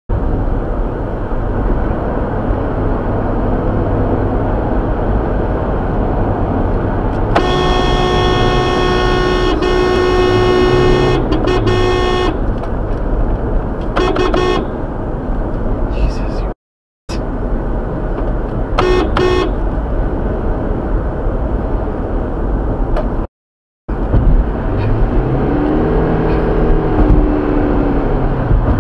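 Steady road and engine noise from inside a moving car. A car horn is held for about five seconds in a few broken blasts, then sounds in two short honks a few seconds later.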